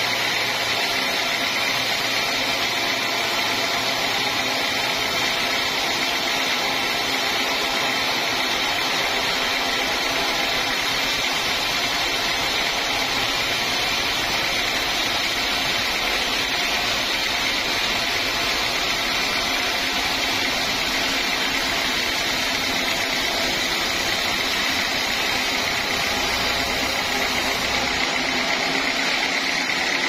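Band sawmill cutting through a large teak log: a steady mechanical running noise with an even high whine from the blade in the wood.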